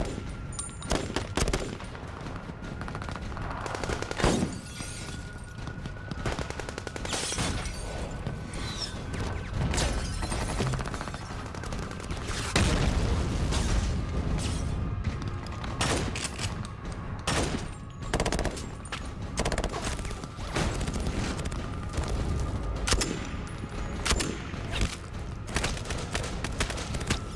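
Sustained small-arms gunfire in a film battle mix: volleys of rifle and machine-gun fire with scattered single shots, over a steady low rumble.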